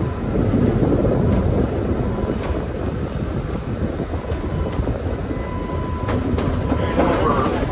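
New Orleans RTA streetcar running on its rails: a steady rumble of wheels and running gear with scattered clicks, and a faint steady whine that grows stronger in the last couple of seconds.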